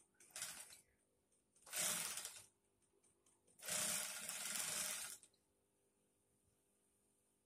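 Industrial sewing machine stitching in three short spurts, the last about a second and a half long, with quiet pauses between.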